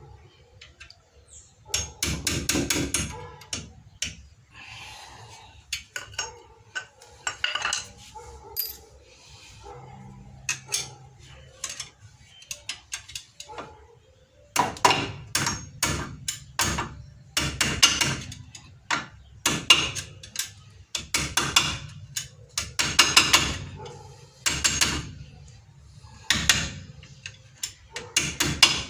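Metal tapping and clinking while brake hardware is worked into the caliper of a front disc brake. It comes in quick runs of sharp knocks: a busy run about two seconds in, a few scattered taps, then repeated groups of rapid strikes from about halfway on.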